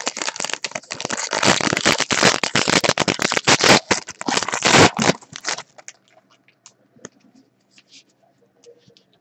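Plastic card-pack wrapper from a 2012 Elite Football box being torn open and crinkled: dense crackling for about five and a half seconds, then only a few faint ticks.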